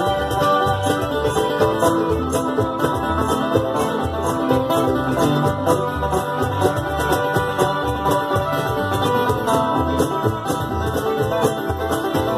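Live bluegrass band playing a lively tune, with the banjo standing out over mandolin, fiddle, acoustic guitar and upright bass.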